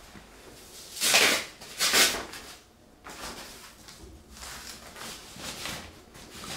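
Rustling of a soft non-woven cloth cover being lifted and pulled off the back of an iMac, with two louder swishes about one and two seconds in, then softer rustles.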